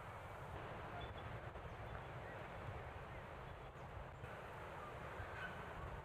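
Bush ambience: a steady low rumble of wind on the microphone, with a few faint, scattered chirps from distant birds.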